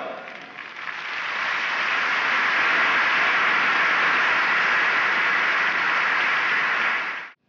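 A large indoor crowd applauding: a dense, even clatter of clapping that swells during the first second, holds steady, and cuts off abruptly near the end.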